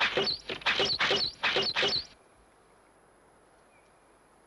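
Five quick whooshes of a weapon being swung through the air, one after another over about two seconds.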